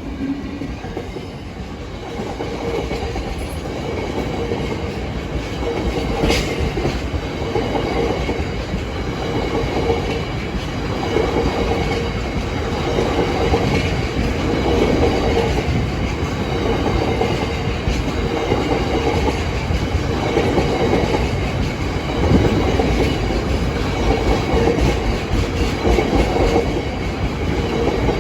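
Class 66 diesel locomotive hauling a train past at speed, with its wheels clattering over the rail joints in a steady, repeating rhythm. The sound builds gradually as the wagons roll by.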